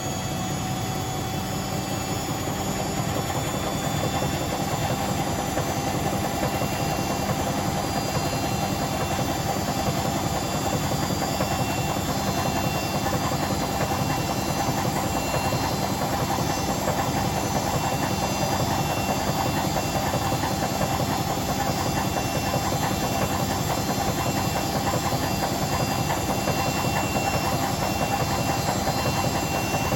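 Hotpoint BHWMXL145 washing machine spinning its drum, with a steady motor whine over a rumbling noise that builds slightly over the first few seconds. The drum spider is snapped, so the drum runs wobbly.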